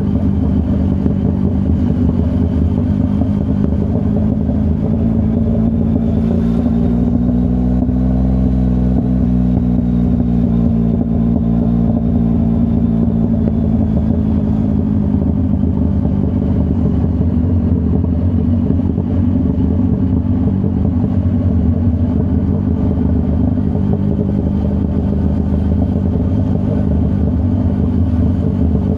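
Yamaha MT-09's three-cylinder CP3 engine through a full Akrapovic exhaust, running steadily under way. The engine note rises a little about six to nine seconds in, then eases back down.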